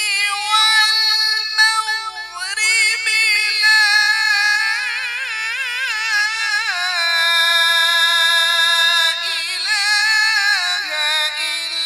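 A man reciting the Quran in melodic tilawat style, in a high voice, with long held notes and rapid wavering ornaments.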